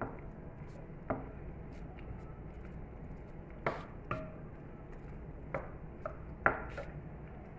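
A cooking utensil knocking sharply and irregularly against a pan, about seven times, while onion, garlic and ginger are being dry-roasted; the last knock near the end is the loudest.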